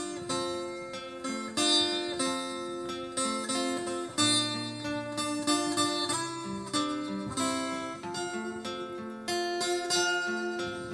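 A single-string canjo plucking a carol melody, note by note, over a strummed acoustic guitar accompaniment.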